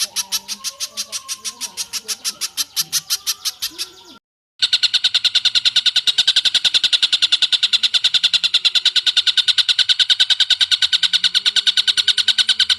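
Recorded bird song: a fast, even run of high repeated notes, about ten a second, with faint lower calls beneath, cuts out suddenly about four seconds in; after a brief silence a second long, steady rapid trill starts and runs on. These are spiderhunter and tengkek buto calls played for training cage birds.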